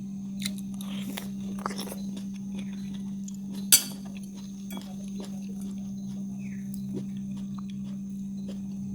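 A person chewing and biting food close to the microphone, with small wet mouth clicks and one sharp click a little under four seconds in, over a steady low hum.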